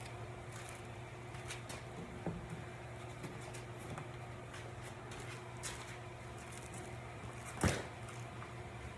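A steady low hum with scattered faint clicks and one louder knock about three-quarters of the way in.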